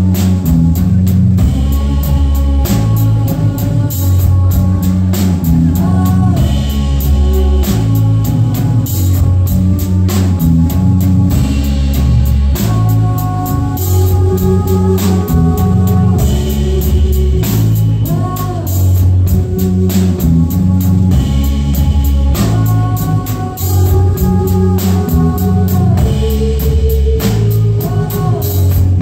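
Live rock band playing: a flute melody over drum kit and electric guitar, loud and continuous.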